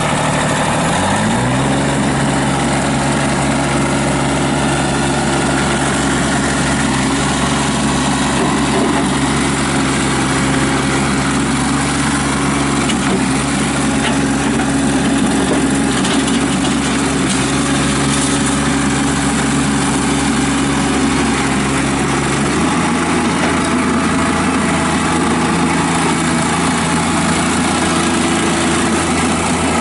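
Kubota diesel engine of a Toro Dingo TX525 mini skid steer running just after being started, its pitch rising over the first second or two as it comes up to speed, then running steadily. Its tone changes abruptly about 23 seconds in.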